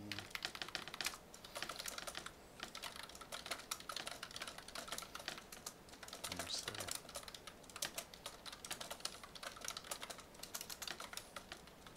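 Typing on a computer keyboard: rapid runs of key clicks with short pauses between them.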